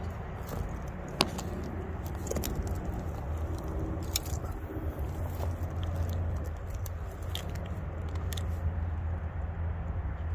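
Handling noise while a spinning rod and reel are held and worked: scattered small clicks and rustles over a steady low rumble, with one sharp click about a second in.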